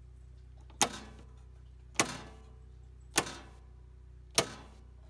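Rocker switches on a Protran manual transfer switch panel being flipped one after another from line to generator: four sharp clicks about a second apart, over a faint low steady hum.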